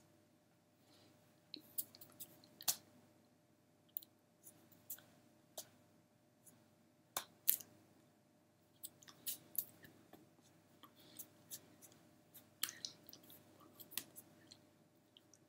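Faint, irregular clicks and taps of hands striking and brushing against each other and a fleece jacket while signing, over a low steady hum.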